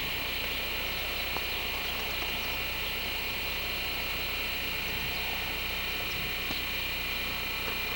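Steady, even recording noise: a constant high-pitched whine with a low hum beneath it, with no distinct event, typical of an old VHS camcorder tape.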